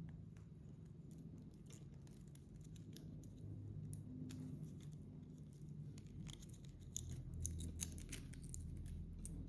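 Faint scattered clicks and light rattles of small plastic connector parts being handled and slid onto a cable, a little louder near the end, over a low steady hum.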